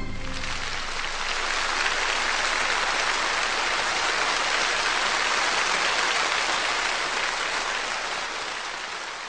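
Steady, even rushing noise with no tune in it, which fades out near the end.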